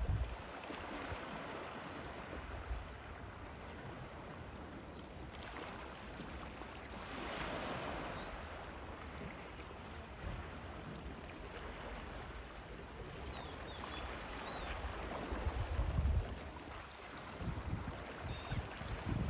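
Calm sea lapping and washing around low rocks at the shoreline, a steady wash of water. A few faint gull calls come in about two-thirds of the way through, and bursts of low rumble come near the end.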